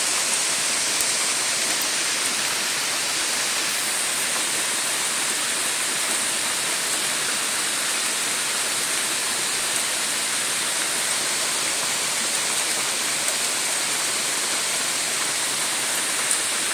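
Steady hiss of rain falling during a thunderstorm, even throughout with no thunder rumble.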